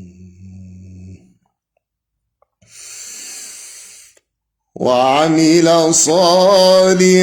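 A man's unaccompanied Quran recitation in a melodic chant: a low held note fades in the first second, a sharp in-breath follows, and the voice comes back in loudly with a long gliding, ornamented line for the last part.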